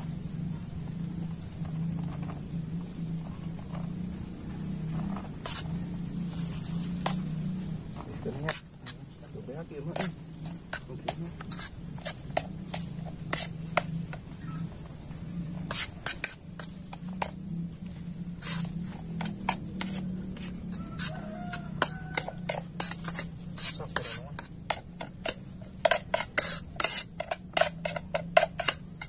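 A steady high insect drone. Over it come many short, sharp clicks and taps of a metal spoon scraping and knocking cooked rice out of a metal camping pot, more frequent in the second half and thickest near the end.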